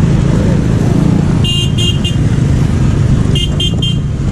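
Motorcycles and minivans running and crossing the tracks close by, a steady engine rumble. Twice it is cut through by a quick series of three or four short, high-pitched beeps.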